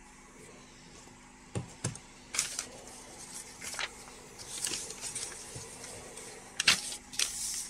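Stiff old paper being handled and unfolded, crinkling and rustling in scattered bursts, with the sharpest crackle near the end.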